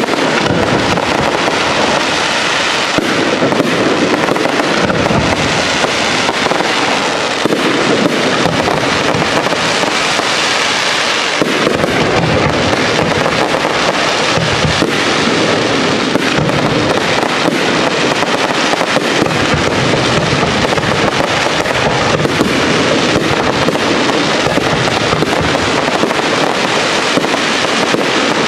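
Large professional fireworks display: a dense, unbroken barrage of shell bursts, many overlapping bangs and crackles with no pause.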